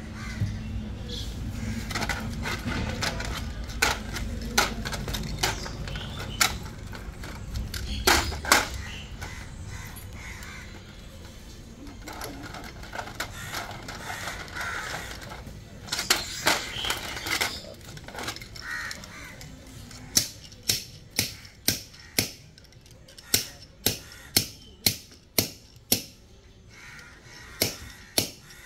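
Workshop knocking and tapping. A low rumble with scattered sharp knocks runs through the first several seconds, then about two-thirds of the way in a steady run of sharp taps starts, about two a second.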